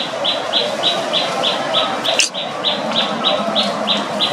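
Forest ambience: a creature repeating one short high chirp in an even rhythm, about three a second, over a steady hiss, with a single sharp click about two seconds in.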